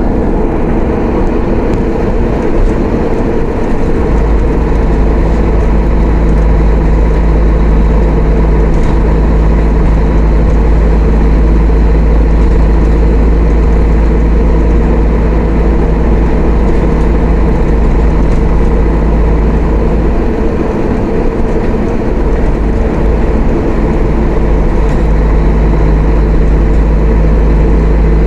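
Mercedes-Benz O500-UA articulated bus's diesel engine running with a loud, steady low drone. The deepest rumble eases off briefly near the start and again about two-thirds of the way through, then comes back.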